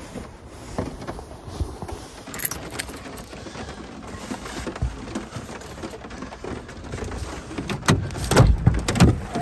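Rain falling on the van, heard from inside as a steady hiss, with handling noises; about eight seconds in the van door's interior handle clacks and the door is pulled open with a few loud knocks.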